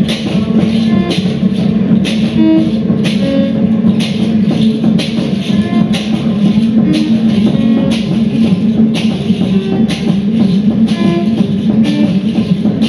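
Live experimental music: a steady low drone under sharp percussive hits about twice a second, with scattered short pitched notes.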